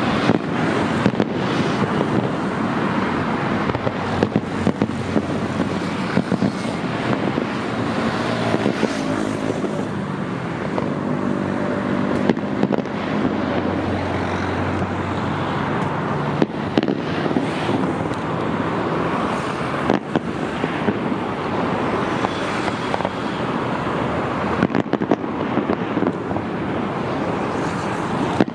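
Fireworks display: a continuous crackle of many small bursts with frequent sharp bangs throughout. A low drone joins in the middle for several seconds.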